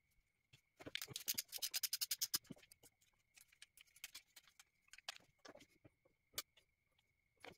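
Hand ratchet clicking quickly for about a second and a half as it backs out an oil filter housing bolt, followed by a few scattered light clicks and taps of the tool on the bolt.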